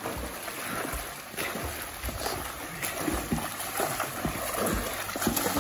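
Pool water splashing under a swimmer doing front crawl, his arm strokes and kicking feet making a steady, uneven splashing.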